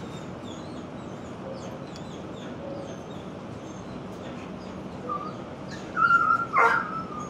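Dogs yelping and barking in a shelter kennel block, mostly faint over a steady background hiss, with a loud, high-pitched yelp about six seconds in.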